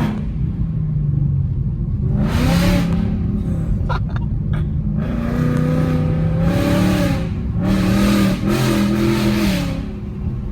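Ford S650 Mustang GT's 5.0 L Coyote V8, running through Kooks long-tube headers and an X-pipe, revving hard in three surges of acceleration about two, five and eight seconds in, its pitch stepping between them.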